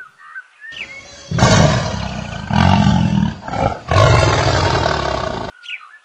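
Tiger roar sound effect: a big cat's deep, growling roar in about three long pulses, starting about a second in and stopping suddenly near the end. Faint bird chirps sound before and after it.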